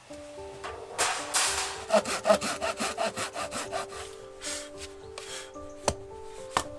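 Hand saw cutting through a wooden board in quick, even strokes from about a second in until about four seconds in. Near the end come two sharp knocks of an axe striking wood.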